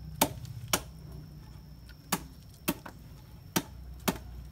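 A machete chopping into a cacao pod on a wooden cutting board to split it open: six sharp chops at uneven intervals.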